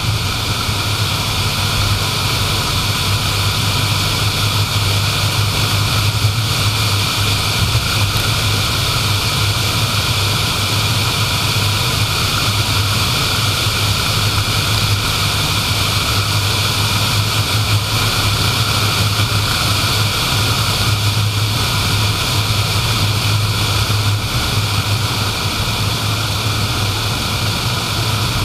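Car driving steadily at road speed: constant tyre and road noise with a low engine drone.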